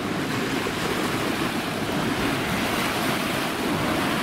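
Steady rushing noise of churned river water and wind on the microphone: the wash of a fast patrol boat that has just sped past, its wake stirring the water toward the bank.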